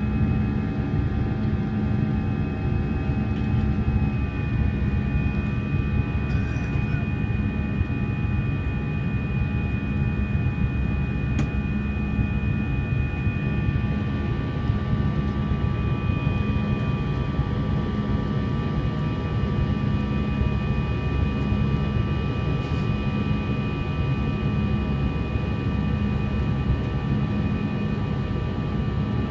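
Steady cabin noise of a jet airliner climbing after takeoff: a low engine drone with several steady whining tones above it, whose pitch changes slightly about four seconds in.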